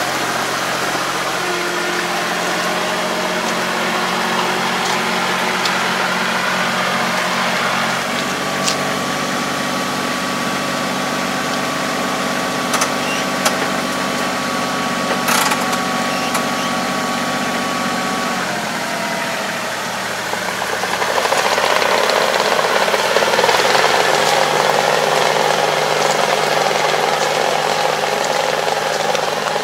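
Half-track farm tractor engine running steadily as the tractor drives along a dirt track, its pitch shifting about two-thirds of the way through, followed by a louder rushing noise.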